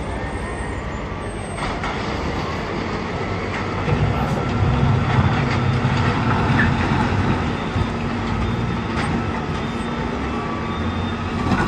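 Diesel engine of a wheel loader working a coal pile, running steadily and growing louder about four seconds in, with a few faint knocks.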